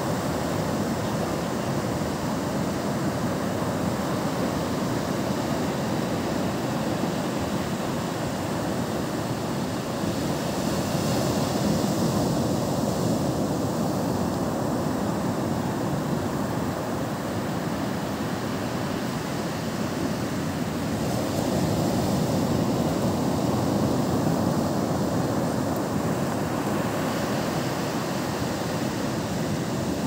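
Sea surf breaking and washing up a sandy beach: a continuous rushing noise that swells louder about a dozen seconds in and again a little past twenty seconds.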